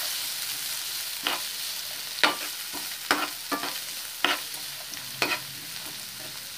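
Peas, carrot, green chilli and ginger-garlic sizzling in ghee in a hot pan, with a steady hiss. A spatula stirring them knocks and scrapes against the pan about six times.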